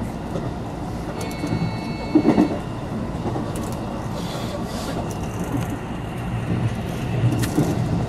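Electric rapid train running, heard from inside the front car: a steady low rumble with heavier rail-joint thuds about two seconds in and again near the end, and a brief high steady tone around the first thud.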